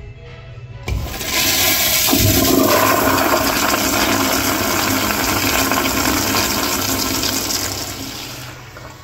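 Crane Whirlton toilet flushed by a Sloan flushometer valve. The handle is pressed with a click about a second in, then a loud rush of water through the bowl for about seven seconds, tapering off near the end.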